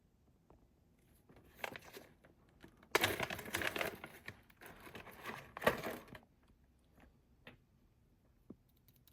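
Handling noise from mechanical keyboard switches being picked up and tested: three bursts of rustling and crinkling, then two faint soft clicks near the end from a silent linear switch.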